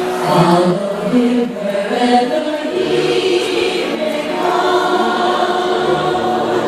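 A choir of women and girls singing together under a conductor, holding long notes in several parts.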